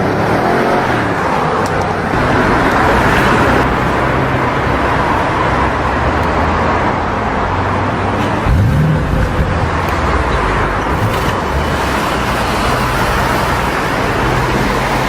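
Audi RS6 C7 Performance's twin-turbo V8 running on the move through a Milltek exhaust, with steady road noise. A little past halfway the engine note briefly rises in pitch.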